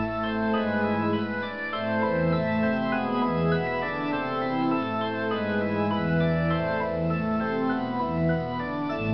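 Organ music: sustained chords with the upper notes moving every half second or so over long held bass notes.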